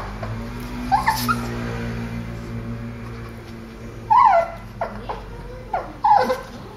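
Small dog whimpering anxiously: about six short, high whines that fall in pitch, the loudest about four seconds in.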